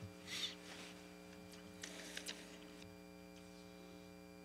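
Quiet room tone under a steady electrical mains hum from the hearing room's sound system. There is a soft hiss about half a second in, and a few faint clicks around two seconds in.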